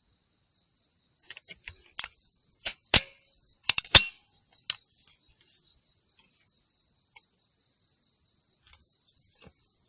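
A run of sharp mechanical clicks and clacks from a 300 Blackout rifle being handled, the loudest about three and four seconds in, over a steady high chirring of insects.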